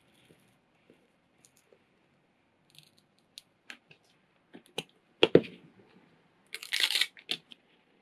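Paper pattern sheets being handled and pressed flat on a cutting mat: scattered light clicks and paper rustles, a sharp tap about five seconds in, and a brief crinkling rustle near seven seconds.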